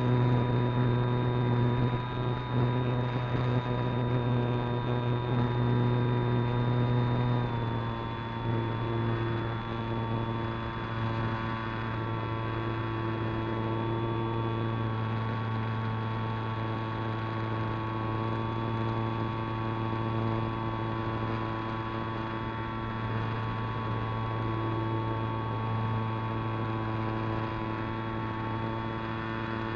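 An RC model airplane's motor and propeller, heard from a camera on board, running at a steady high pitch in flight. About a quarter of the way in the pitch drops a step and then holds steady.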